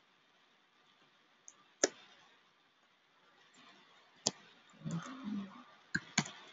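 A few single computer keyboard keystrokes with long gaps between them: one about two seconds in, another past four seconds, and a quick pair near the end.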